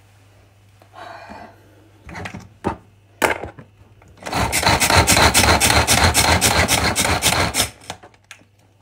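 Hand-pull string food chopper being pulled over and over, its spinning blades rattling and whirring through a mix of chili and garlic in quick, even strokes for about three and a half seconds. A few knocks and handling noises come before it as the chopper is taken in hand.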